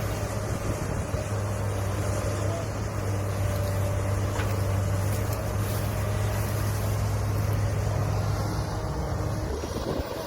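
Heavy diesel engine of an earthmoving machine running steadily with a low, even drone, which drops away near the end.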